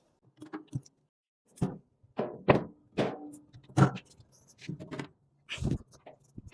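Irregular knocks and thuds of heavy home battery pack units being lifted and set down as they are stacked onto their base.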